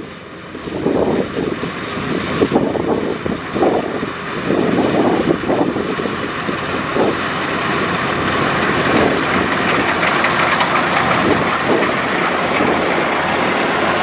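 Kubota DC-105X crawler combine harvester running at work, its engine and cutting machinery a dense steady mechanical noise that grows louder over the first half as the machine draws near, then holds loud and close.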